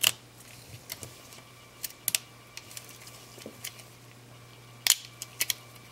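Small, sharp plastic clicks from a compact camera's back cover being pried and worked loose by hand, scattered and irregular, the loudest right at the start and about five seconds in.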